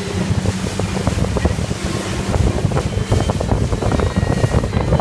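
Wind buffeting the microphone aboard a moving motorboat, with water splashing against the hull through the chop. A steady low engine hum fades out within the first second or two.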